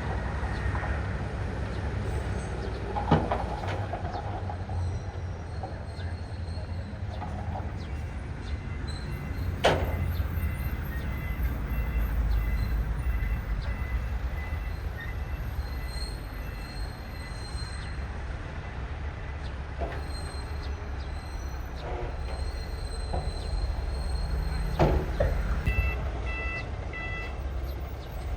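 Crawler earthmoving machines working: a deep diesel rumble with squealing and clanking from the steel tracks, and a few sharp metal clanks. A short run of beeping comes in near the end.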